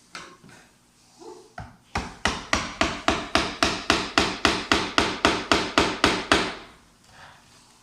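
Hammer blows: a few single knocks, then a steady run of about seventeen strikes at roughly four a second, lasting about four seconds.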